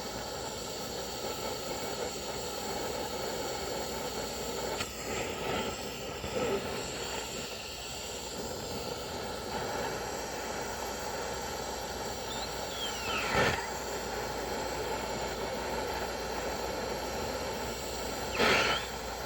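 Gas torch flame hissing steadily while it heats a seized, broken stud to free it, with a few brief clanks and scrapes of metal.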